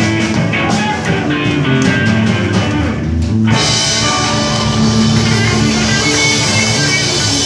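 Live rock band playing: electric guitars over a drum kit keeping a steady beat. About halfway through the sound turns brighter and fuller.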